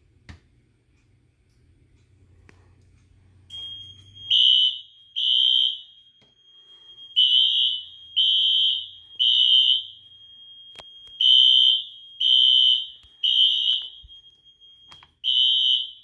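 Wheelock fire alarm horns sounding in sync in the temporal-three pattern: three loud, high, buzzy blasts, then a pause, repeated. A steady high tone starts a moment before the horns and carries on under them. A smoke detector has gone into alarm and the panel has set off the notification devices.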